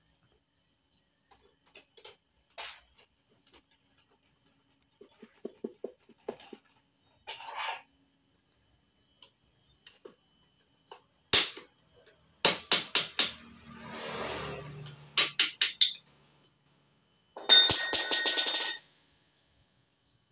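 Hammer striking metal parts of a scooter's steering head while the steering-stem adjusting nuts are worked. Light clicks of tool handling first, then several quick series of sharp metallic blows, with a short scraping stretch between them; the last series near the end rings.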